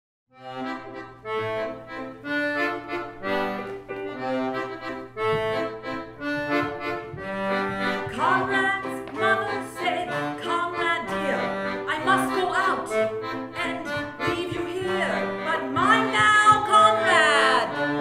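Piano accordion playing a tune in short sustained phrases, starting about half a second in. About eight seconds in, other musical parts with sliding, wavering pitches join and the music grows fuller.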